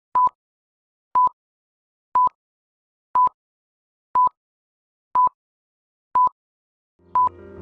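Film-leader countdown beeps: a short, high, single-pitch beep once a second, eight times, with silence between. Music fades in near the end.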